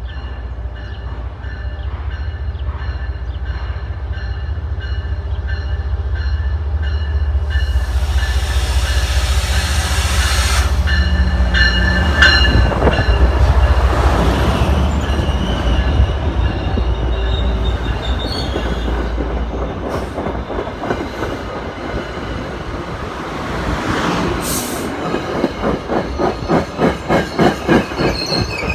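MBTA commuter train passing close at a station: the deep rumble of its MPI HSP46 diesel locomotive grows loud as it goes by, then the bilevel coaches roll past with a rhythmic clicking of wheels over the rail joints, about two to three clicks a second near the end.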